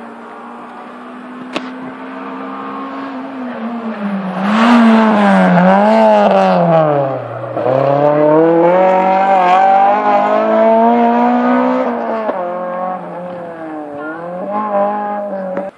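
Rally car engine at full stage pace. It grows louder as the car approaches, and its note falls as the car slows for a junction about seven seconds in. It then revs up again in rising steps through several gear changes and cuts off suddenly at the end.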